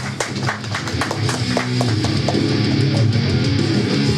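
A live heavy metal band's guitar and bass come in on sustained low chords that swell in loudness over the first second or so. Sharp ticks fade out by about two seconds in.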